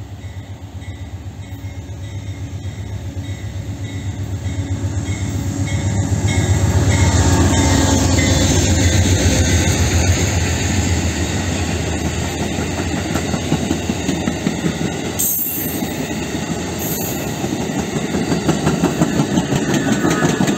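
Amtrak Carolinian diesel-hauled passenger train approaching and passing close by. The locomotive's engine grows louder over the first several seconds, then the Amfleet coaches roll past with a steady rhythmic clatter of wheels over the rail joints.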